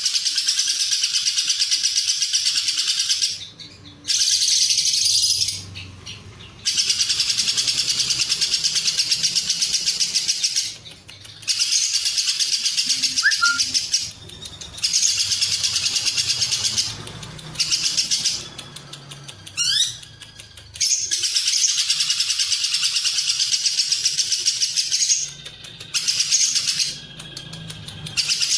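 Lovebird singing ngekek: long runs of very rapid, continuous high chattering notes, several seconds each, broken by short pauses.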